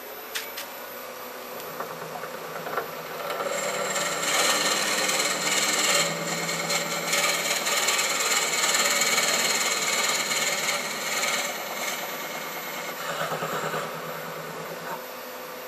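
Record Power wood lathe running, with a drill bit in the tailstock chuck fed into the spinning wooden yo-yo blank: a rasping cutting hiss over the lathe's steady hum. The cutting grows loud about three to four seconds in, holds until about twelve seconds, then eases off.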